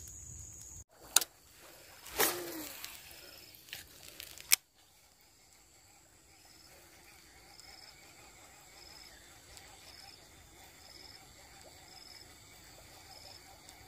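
A few sharp knocks and rustles from the chest-mounted camera being handled, then a quiet outdoor background with an insect chirping in short high pips, about one every two-thirds of a second, over a faint steady high buzz.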